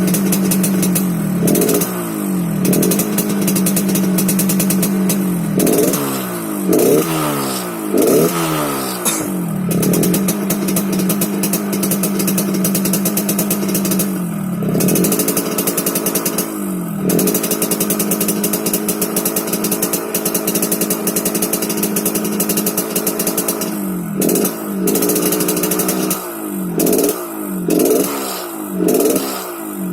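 Yamaha RX-King two-stroke single-cylinder motorcycle engine with its stock exhaust, running with a 'ngorok' (snoring) note. It idles steadily and is blipped a dozen or so times, each a quick rise and fall in pitch. The blips come in a cluster in roughly the first ten seconds and another in the last six.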